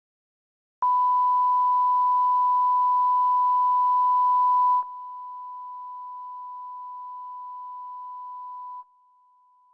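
Hearing-test tone: one steady beep tone, starting about a second in and played in steps of falling loudness. It is loud for about four seconds, drops to much quieter for the next four, then becomes fainter still near the end.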